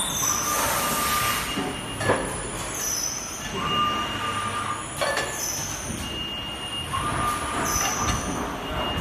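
Four-station turntable screen printing machine running its automatic cycle: a sharp knock, hissing and held squealing tones, repeating about every three seconds.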